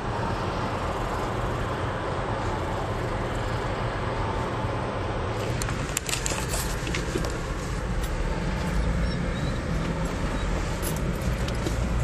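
Steady engine and road noise heard inside a car's cabin while driving at low speed, around 20 mph. A few light clicks and knocks come about halfway through and near the end.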